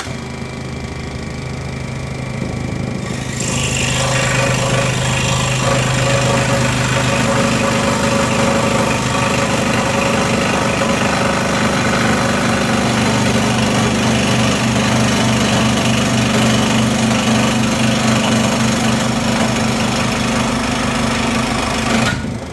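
WEN scroll saw running and cutting through 1.5-inch pine: a steady motor hum at first, then from about three seconds in the reciprocating blade chattering louder through the wood. The sound drops back near the end as the cut finishes.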